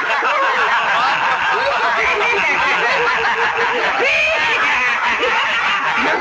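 A group of men laughing together at someone, many voices overlapping without a pause.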